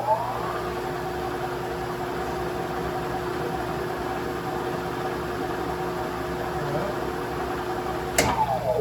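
Manual lathe motor and spindle speeding up, then running steadily with a hum. About eight seconds in, a sharp click as it is switched off, and it winds down.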